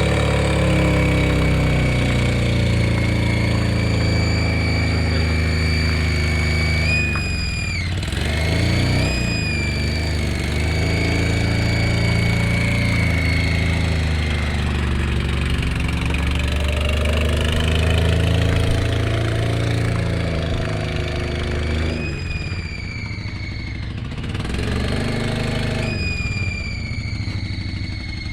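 VAZ 2108 carburetted four-cylinder engine running with a steady high whistle from the carburettor and intake, the revs and the whistle's pitch rising briefly several times as the throttle is blipped. The owner traces the whistle to an air leak in the intake, at the head-to-manifold or manifold-to-carburettor joint.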